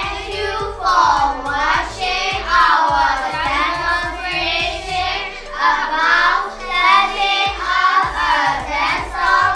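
Music with children singing.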